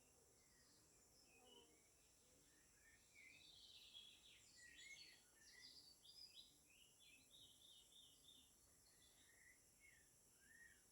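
Faint birdsong: many short chirps and twitters from small birds, busiest a few seconds in, over a steady high hiss.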